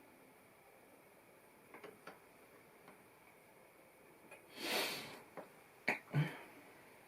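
A few sharp clicks and taps of LEGO pieces being handled, with a short sniff about two-thirds of the way through.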